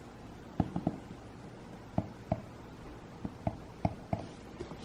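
A scattered series of about ten light clicks and taps, irregularly spaced, over a quiet room background.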